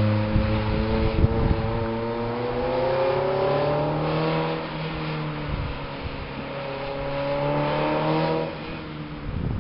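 Toyota MR2 SW20's 2.0-litre four-cylinder engine and exhaust revving. The pitch climbs steadily for a few seconds and falls off about halfway through, then climbs again and drops back near the end.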